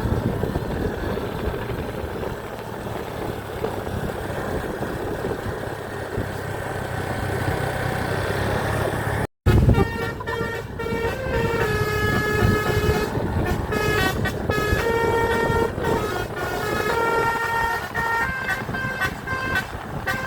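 A bus's engine and road noise running, then, after a cut about halfway through, the bus's basuri telolet horn playing a melody: several horn tones sounding together and stepping from note to note.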